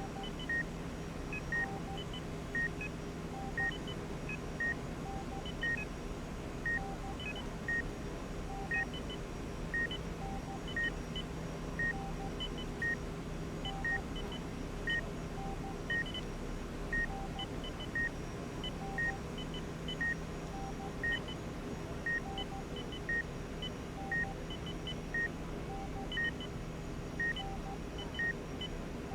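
Hospital medical monitors beeping: one short beep repeats about once a second, while a second machine sounds pairs of beeps at higher and lower pitches at uneven intervals, over a steady low equipment hum.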